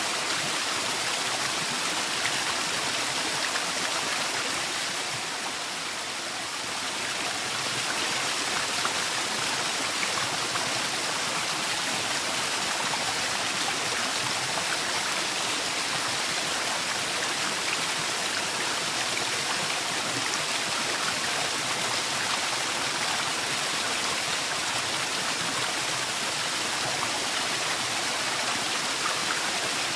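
Waterfall rushing steadily: a dense, even hiss of falling water, strongest in its upper range, that dips slightly in level about six seconds in.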